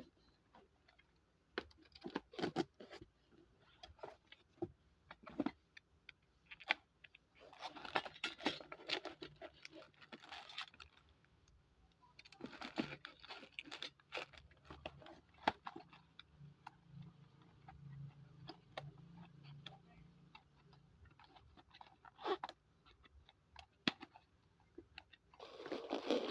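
Handling noises from unpacking a TV wall-bracket kit: packaging rustling and crackling in irregular bursts, with scattered clicks and clinks as the parts are handled.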